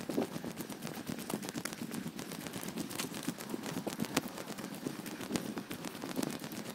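Footsteps on a dirt-and-gravel footpath: a dense run of small, irregular clicks and crunches.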